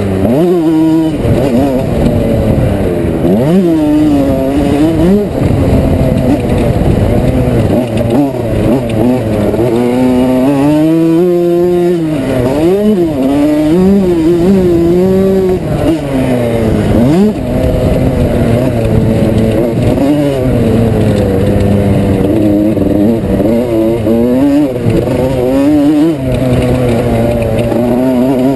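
1987 Yamaha YZ125's single-cylinder two-stroke engine ridden hard, its revs climbing and dropping over and over as the throttle is opened and shut.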